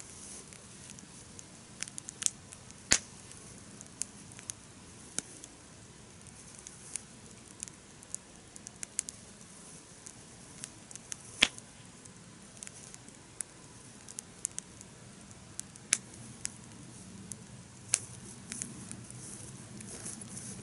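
Wood campfire crackling steadily, with irregular sharp pops and snaps, a few much louder than the rest, over a low hiss.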